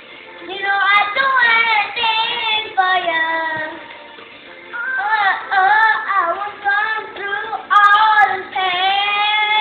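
A young boy singing solo, long sliding vocal runs with no clear words and a short break about four seconds in.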